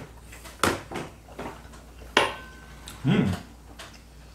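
Utensils clinking on ceramic plates and bowls: two sharp clinks, the second ringing briefly, and a few lighter ticks. A short low voiced sound about three seconds in.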